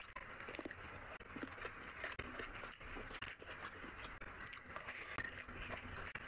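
Close-miked eating sounds: wet chewing and lip smacking on rice and curry eaten by hand, with fingers squishing rice on the plate, making a steady run of small wet clicks.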